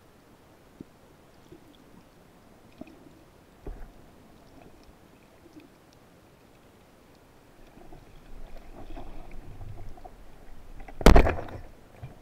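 Muffled underwater hush with a few faint clicks, then swirling water noise building up before a Cressi Geronimo band-powered speargun fires near the end with one loud, sharp clack.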